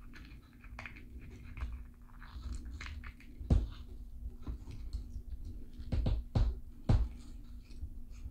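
Handling noise of a taped plastic cup and metal tweezers: crinkling, scraping and irregular sharp taps and knocks, several of them loud in the second half, as a small grille is picked out of a bleach soak. A faint low steady hum runs underneath.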